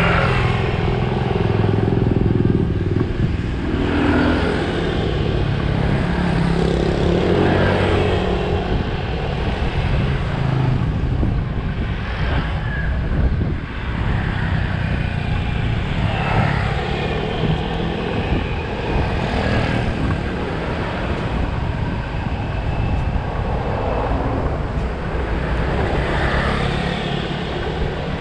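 Motorcycle engine running while riding along a road, heard from on board, with steady road and wind rush. The engine pitch rises and falls several times as the throttle opens and closes.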